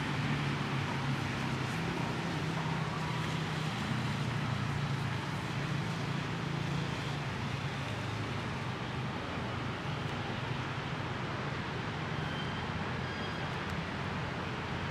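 Steady low drone of a distant engine over an even outdoor hiss; the drone eases about halfway through.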